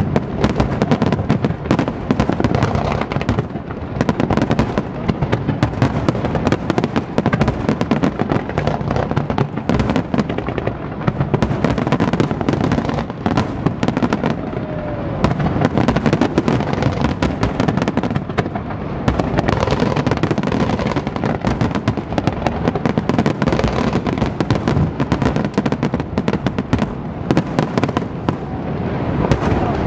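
Fireworks display at full intensity: a continuous dense run of shell bursts and crackling, many reports a second with no let-up.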